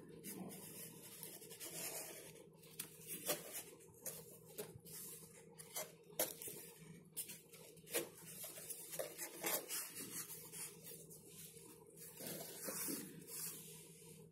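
Coloured cardstock and paper panels of a handmade gift box being handled and unfolded: irregular rustling and scraping with sharp little clicks and snaps.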